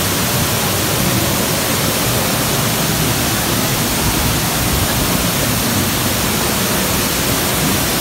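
Dry Falls, a waterfall on the Cullasaja River, pouring in a steady, loud, unbroken rush, heard from the walkway behind the curtain of falling water.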